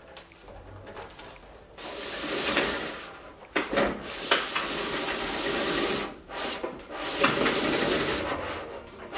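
A pull-up banner stand being set up: the printed banner slides and rubs as it is drawn up out of its aluminium base. Three long stretches of rubbing, with a couple of sharp clicks of the metal parts about four seconds in.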